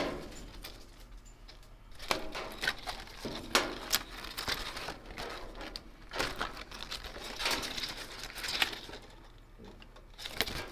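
Stiff paper instruction tags rustling and crinkling as they are handled and leafed through, with scattered sharp snaps.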